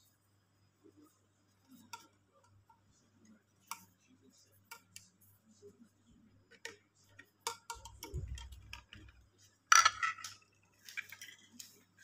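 Scattered light clicks and taps of hard plastic handheld-vacuum parts and a ribbed plastic extension hose being handled and set down on a tiled floor. Near the middle comes a low bump, and later the loudest sound, a single sharp clack.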